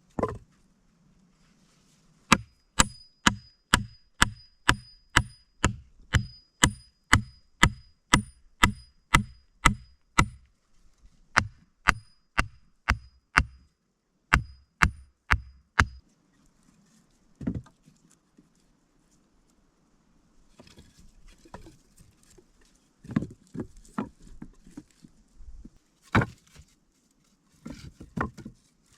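A long run of rapid, evenly spaced chopping strikes, about one and a half a second, each with a short faint metallic ring, stopping about halfway through. Then a lone knock, followed by rustling and a few scattered knocks.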